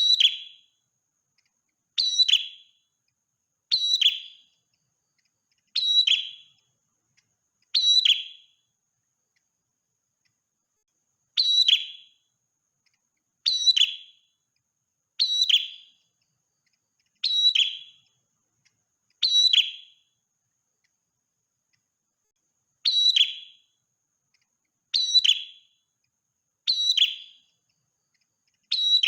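Prenjak merah songbird calling: short, sharp, falling notes about every two seconds, in runs of four or five with short pauses between the runs.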